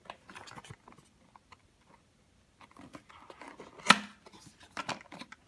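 Puzzle packaging being opened by hand: scattered light clicks and rustles, with one loud sharp snap about four seconds in.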